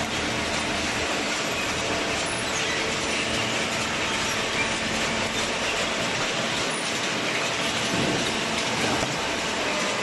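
Steady mechanical running noise of a hydraulic paper baling press at work, an even noisy din with faint steady tones underneath.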